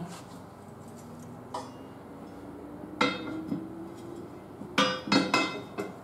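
Steel bar of a manual tire changer clanking against the steel wheel rim and the changer's post. One light knock comes about a second and a half in, a ringing clank about three seconds in, and a quick run of louder ringing clanks near the end.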